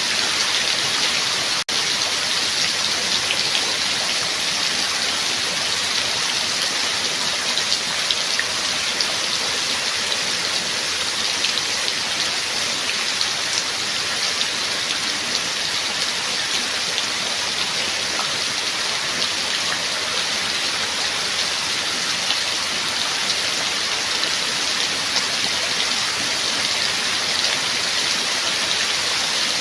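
Steady rain falling: a dense, even hiss of rain with the patter of individual drops. A split-second gap breaks it about two seconds in.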